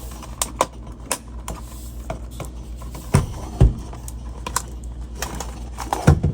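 Scattered clicks and knocks of plastic refrigerator parts being handled and fitted during a damper replacement. There are heavier thumps a little after three seconds in and again near the end.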